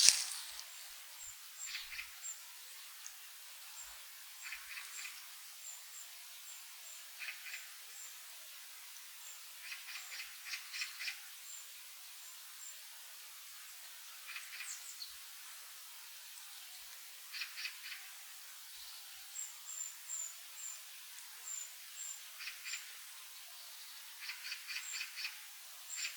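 Small birds calling: short bursts of three to five quick chipping notes every few seconds, with thin, very high single chips scattered between them.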